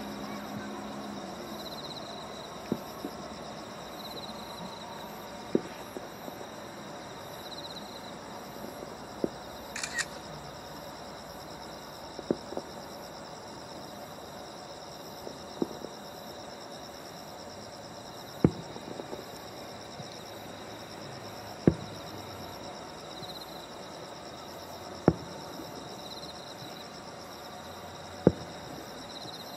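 Night insects chirping steadily, with a sharp thump about every three seconds, nine in all.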